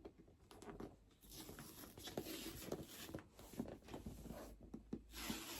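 Cardboard pull tab being torn along the side of an Apple Vision Pro box: faint tearing and rustling with small ticks, louder near the end.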